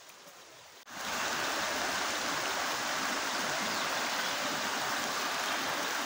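Rushing water of a stream or waterfall, a loud steady rush that cuts in suddenly about a second in.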